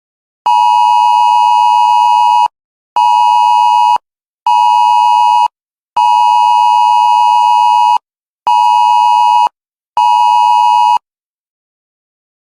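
Loud two-tone Emergency Alert System attention signal, pulsed six times in a long-short-short, long-short-short pattern: two-second beeps and one-second beeps separated by half-second gaps.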